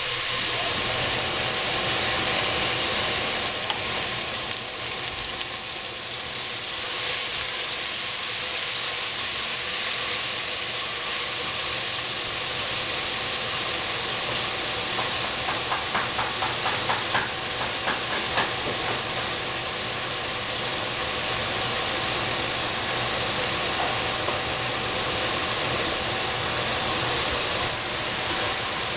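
Sliced onions sizzling steadily in a stainless steel pot, with a wooden spoon scraping and stirring in a run of quick ticks about halfway through.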